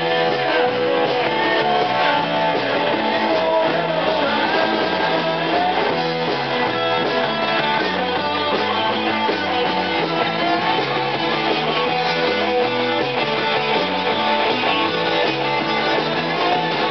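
Live amplified rock band playing: electric guitar over a bass guitar line, loud and continuous.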